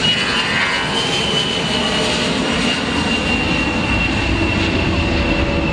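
Aircraft engines running at high power: a steady dense roar with a thin high whine that slowly falls in pitch.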